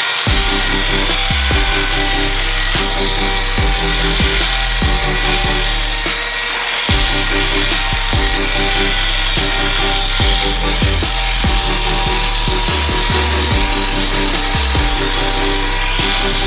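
Background music with a steady beat, over the sound of wood being worked with hand tools.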